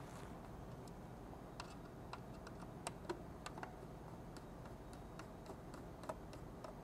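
Small hand screwdriver tightening screws into a metal mounting plate: faint, irregular clicks and ticks over a low steady hum.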